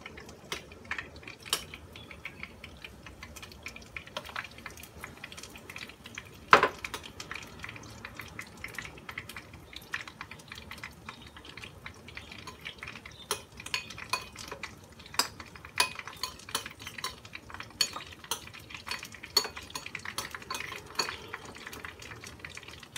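A metal spoon stirring and scraping mushroom batter in a ceramic bowl, with irregular clinks against the bowl and one louder knock about six and a half seconds in.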